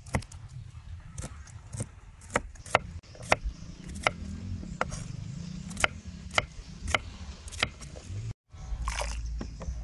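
Chef's knife chopping green bell pepper on a wooden chopping board: sharp knocks of the blade hitting the wood, about two a second. They stop near the end, after a short break, and a steady low rumble follows.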